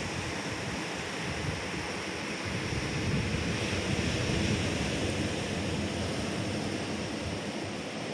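Ocean surf breaking on a reef, with wind rumbling on the microphone: a steady wash of noise, a little louder around the middle.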